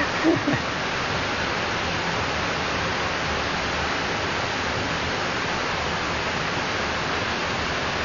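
Steady, even hiss of noise like static or rushing water, holding a constant level with no tune or rhythm in it.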